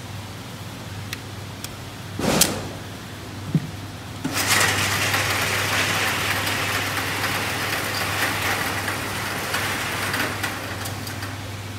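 A few handling clicks and a sharp knock from the pistol and magazine, then about four seconds in a motorised range target carrier starts up and runs steadily for about six seconds, carrying the paper target out along its overhead rail.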